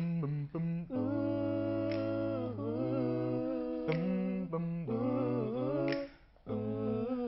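Three young male voices singing a cappella in close harmony, sustained chords over a low bass part. The voices break off briefly about six seconds in, then come back in.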